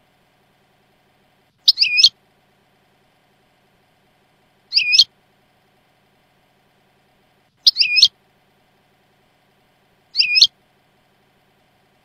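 European goldfinch call from a Jordanian-dialect goldfinch tutoring tape: a short sweeping call, each under half a second, repeated four times about every three seconds with silence between.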